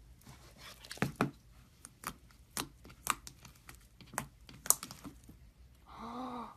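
Slime being squeezed and worked by hand, giving a series of sharp pops and crackles as air pockets burst. Near the end comes a short pitched sound.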